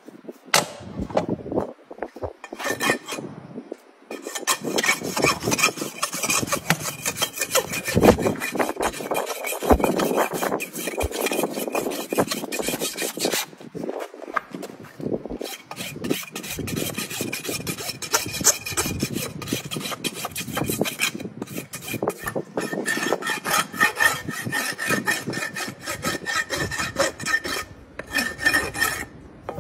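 Farrier's steel hoof rasp filing a horse's hoof, rapid rough back-and-forth strokes in long runs with a few brief pauses.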